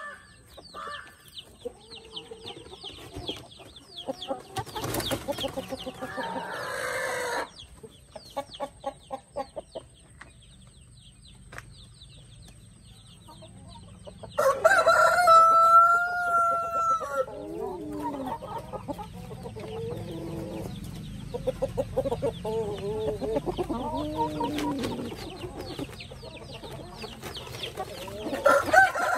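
Brahma chickens: hens clucking and murmuring. About halfway through, a rooster crows loudly once, a steady call of about three seconds that drops in pitch at the end. Another crow begins at the very end.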